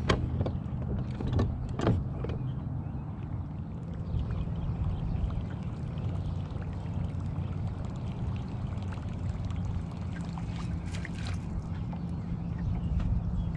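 Steady low hum of a bass boat sitting on the water, with a few sharp clicks from the fishing tackle near the start and a cluster of lighter ticks about ten seconds in.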